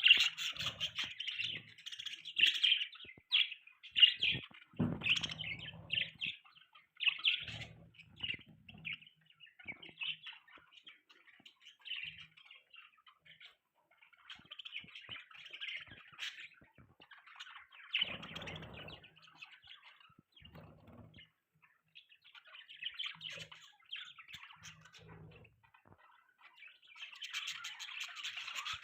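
Budgerigars chirping and warbling in quick, busy runs of high notes, loudest near the start and again near the end, with quieter stretches between. Faint low thumps here and there.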